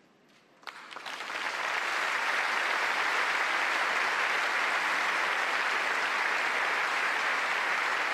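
A large audience breaks into applause: a few first claps about half a second in, swelling within a second into steady, full applause.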